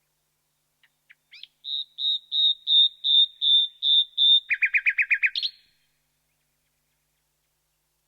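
Common nightingale (Luscinia megarhynchos) singing one song phrase: a few soft introductory notes, then a run of about eight loud, evenly repeated high whistled notes that swell in loudness, switching near the middle to a fast, lower-pitched rattling trill that ends on a quick rising note.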